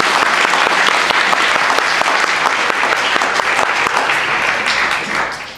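Audience applauding: many hands clapping densely, dying away near the end.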